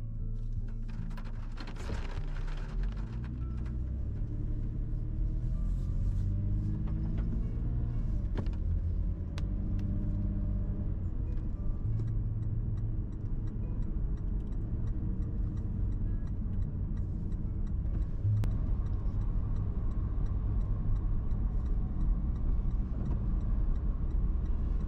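Toyota 4Runner heard from inside the cabin, with engine and tyre rumble on wet pavement. The engine note rises as the SUV pulls up from a crawl, then settles into a steady cruise.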